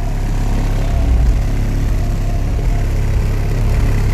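A wall of four 15-inch SP Audio subwoofers in a car playing deep bass at high volume: a steady low booming rumble with a pulsing beat.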